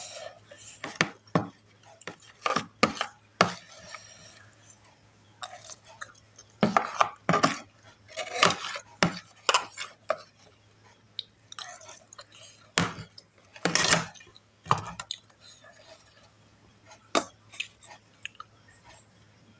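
Close-miked eating of fried noodles: cutlery clicking and scraping against the dish at irregular intervals, mixed with chewing.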